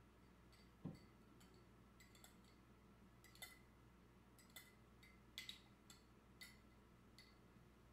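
Near silence: room tone with a soft thump about a second in and a scattering of faint, sharp clicks through the rest.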